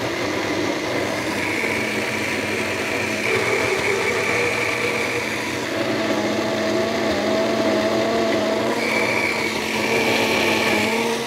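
Personal bullet-style blender running steadily and loud, its cup held pressed down on the motor base to blend a thick date and banana smoothie. A high whine over the motor's hum fades in and out twice.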